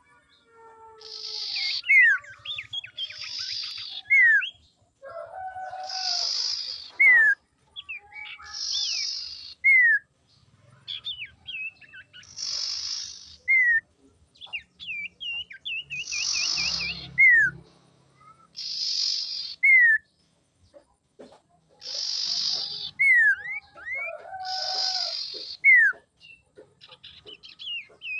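Common iora calling over and over, about every three seconds: a short harsh rasping note followed by a clear whistle sliding downward, with some quick wavering whistled notes in between.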